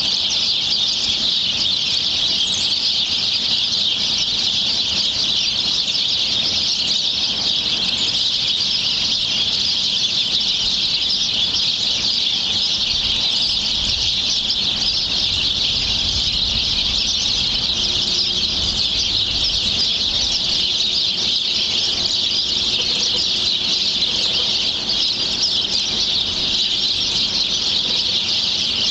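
A dense, unbroken chorus of many birds chirping and chattering at once, high-pitched and steady in level throughout.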